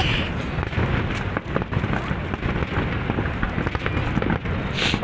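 Aerial fireworks shells bursting in a dense barrage of bangs and crackle.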